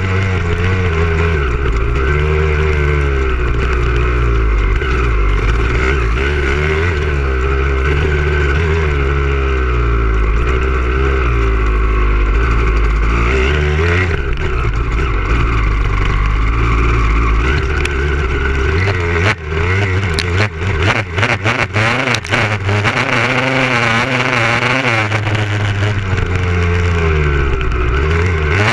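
Motocross dirt bike engine close up from an onboard camera, revving up and down repeatedly through the turns. About two-thirds of the way through there is a flurry of sharp knocks with brief drops in the engine sound.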